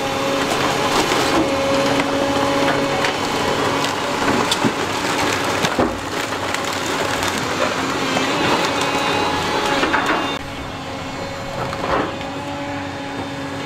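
SANY excavator tearing apart a brick building's roof and wall: crunching and splintering of wood, sheet-metal roofing and brick with many sharp cracks, over the steady drone of the excavator's diesel engine. The crunching eases after about ten seconds, leaving the engine and a single knock near the end.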